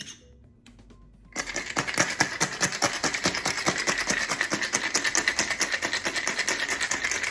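Ice cubes and coconut water rattling in a shaker being shaken hard, a dense fast clatter that starts about a second and a half in, after a single small click.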